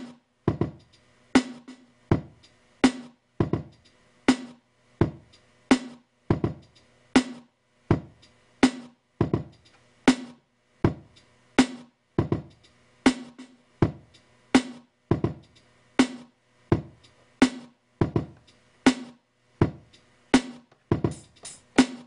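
Simple boom bap drum pattern looping on a Native Instruments Maschine at about 82 BPM, kick and snare alternating, one hit on each beat. Near the end a run of quicker, lighter hits joins in.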